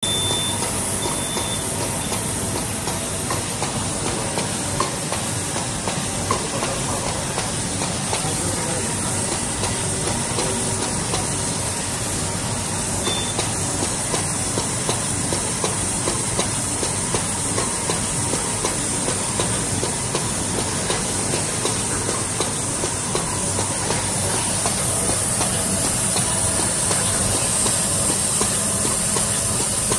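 Automatic inductor testing and packaging machine running: a steady hiss and rattle with many small clicks from its vibratory bowl feeder and pneumatic handling parts.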